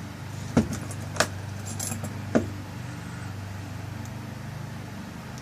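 Small metal clicks and clinks from a lock cylinder's tailpiece being fitted and screwed on, four sharp clicks in the first two and a half seconds, over a steady low hum.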